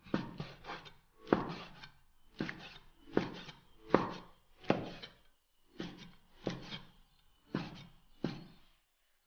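Cleaver slicing braised pig's ear and knocking on a wooden chopping board, about two cuts a second at an uneven pace, stopping shortly before the end.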